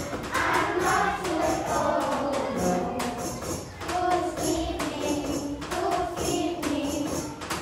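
Music with a steady beat: a jingling tambourine over voices singing.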